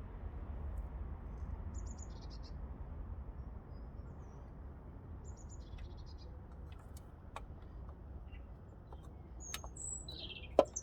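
Small birds chirping in short high calls over a steady low rumble, with one sharp click near the end.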